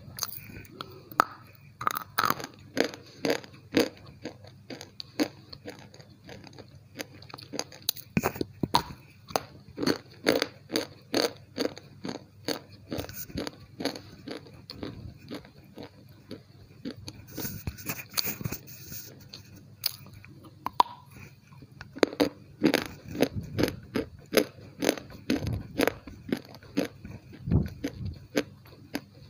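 Close-miked biting and chewing of a hard white chalky slate-pencil piece: runs of sharp, rapid crunches with short pauses between them.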